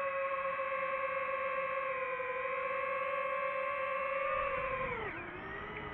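Quadcopter drone's motors and propellers whining at a steady pitch, then dropping sharply in pitch about five seconds in as the motors slow down.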